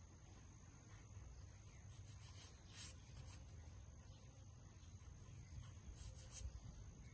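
Near silence: faint outdoor background with a low rumble, a steady faint high hiss, and a few light scrapes or ticks.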